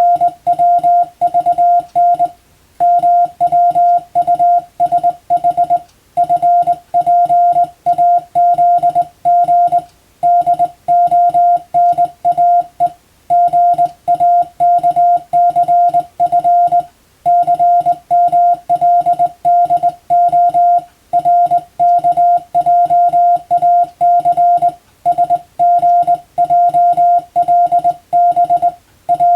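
Hand-sent Morse code (CW): a single-pitch beep keyed on and off in quick dots and dashes, spelling out English-language telegram practice text in word groups with short pauses between them.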